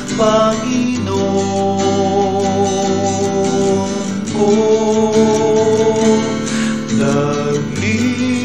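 Filipino Catholic hymn with acoustic guitar accompaniment and a voice holding long sung notes, changing pitch about halfway through and again near the end.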